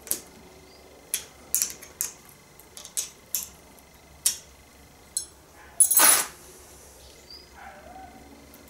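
Metal-on-metal clinks of a small spanner against the steel hedge trimmer cutter bar and its bolts: a handful of separate sharp ticks, then a louder brief clatter about six seconds in.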